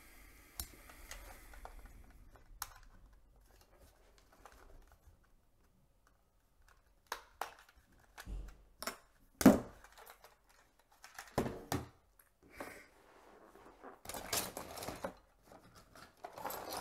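Plastic clicks, taps and scraping as a Kodak FunSaver disposable camera's plastic shell is pried open with a small screwdriver. One sharp click about halfway through is the loudest, and a stretch of scraping and rustling follows near the end.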